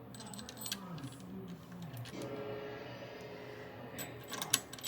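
Screws being driven into a CPU cooler's mounting bracket: a steady mechanical whir for about two seconds, then several sharp clicks near the end.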